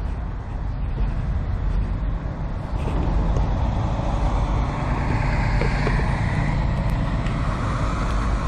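Blue Peterbilt semi truck's diesel engine running with a steady low rumble, getting louder about three seconds in.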